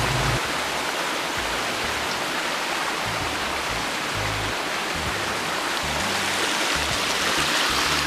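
Stream water rushing and splashing over rocks in small cascades, a steady wash of noise. Background music with a bass line plays along with it.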